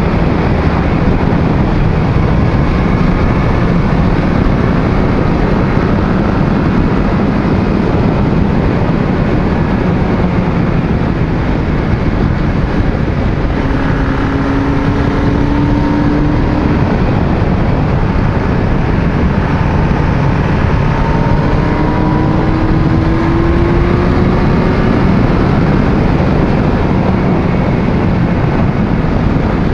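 Motorcycle under way at speed: a steady roar of wind over the handlebar-mounted microphone, with a Yamaha sportbike's inline-four engine running underneath. The engine pitch rises twice, around the middle and again about two-thirds of the way in, as the bike accelerates.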